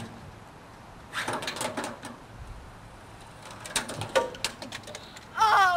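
A child's high-pitched, wavering squeal near the end, rising and falling in pitch, after a few scuffs and knocks.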